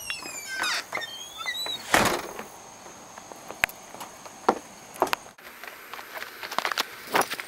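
Footsteps knocking on a wooden deck, a handful of separate steps, over a background of high chirps and a steady high insect buzz.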